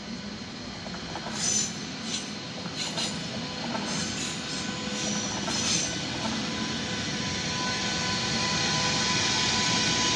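DB class 101 electric locomotive hauling an Intercity train past at low speed: a steady electric whine over the rumble of the train, with several short, high wheel squeals in the first half, growing louder as the locomotive passes close by.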